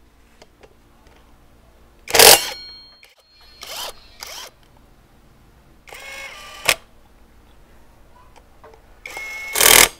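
Cordless power driver spinning motorcycle brake-disc bolts in short trigger bursts: one about two seconds in, two quick ones around four seconds, a longer whining one around six seconds and another near the end. The trigger sends it straight to full speed.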